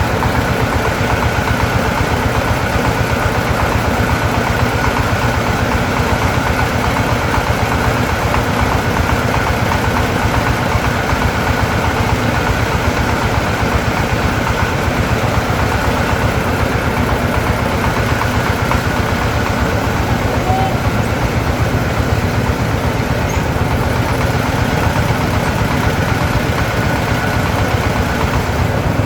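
A small engine running steadily at an even speed, with a fast, even pulse of firing strokes.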